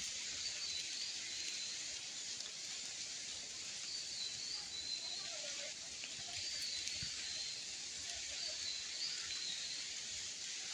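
Outdoor forest ambience: a steady high hiss, with a bird repeating a short, high warbling call about every two seconds.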